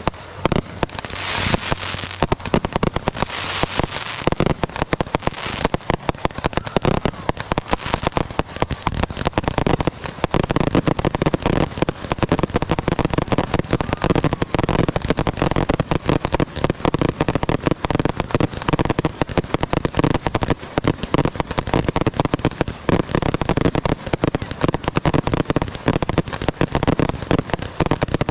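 Fireworks finale: a rapid, continuous barrage of bangs from shells bursting one on top of another. A hissing, crackling high sound runs through the first few seconds.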